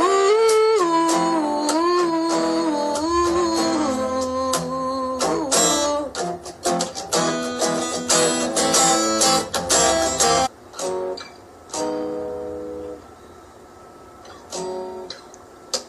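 Steel-string acoustic guitar strummed, with a wordless sung run over it in the first few seconds. The strumming thins out to a few scattered strums and single notes after about ten seconds.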